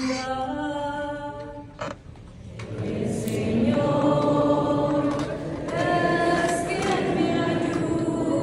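Church singing of the responsorial psalm. A sung phrase ends, there is a short pause with a single knock, and then a group of voices sings together in a fuller sound.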